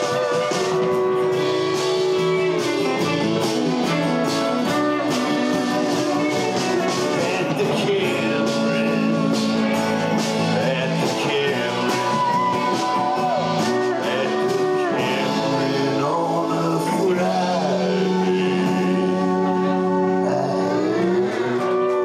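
Live band playing a bluesy folk-rock number, with acoustic guitar, keyboards, electric bass and a steady drum beat, and held notes and bending melody lines over the top.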